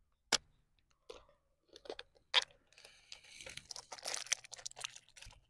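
Plastic clicks and rattles from a toy car being handled and pressed together by hand while it is being fixed. A few single sharp clicks come first, then a run of small crackling clicks about three seconds in.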